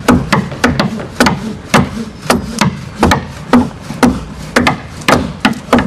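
Hand tools striking wood over and over as a wooden boat is built: sharp blows about three a second in an uneven rhythm, some coming in quick pairs.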